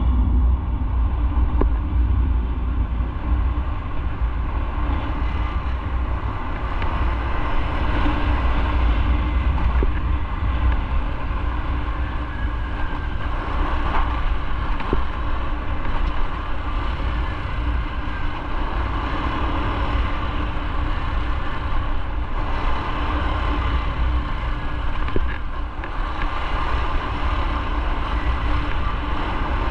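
Motorcycle engine running steadily while riding, with a strong low rumble of wind on the microphone.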